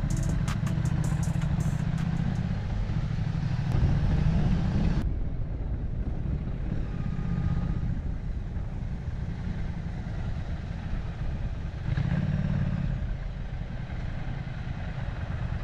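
Motorcycle riding along the road, a steady low rumble throughout. A brighter hiss drops away abruptly about five seconds in.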